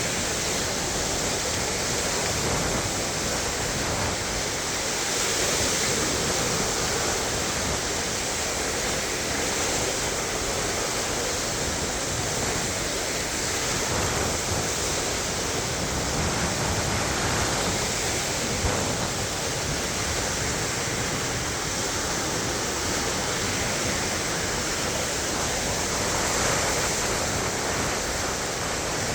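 Lake Michigan waves washing onto the shore in a steady, continuous rush of surf, swelling slightly now and then.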